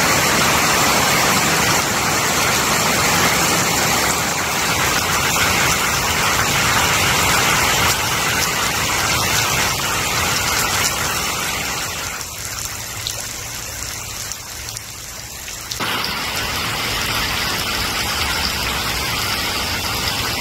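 Heavy rain pouring down onto open water and puddles, a steady dense hiss that eases for a few seconds about twelve seconds in before returning.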